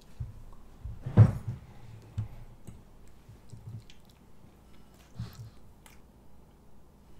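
A child chewing pasta and eggs at the table, with small clicks of a fork and one sharp knock about a second in.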